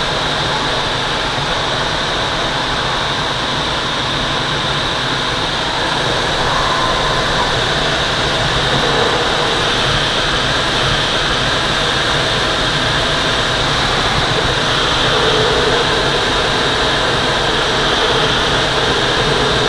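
Steady rush of air over the canopy of a Twin Astir glider in flight, heard from inside the cockpit, getting a little louder about a third of the way in.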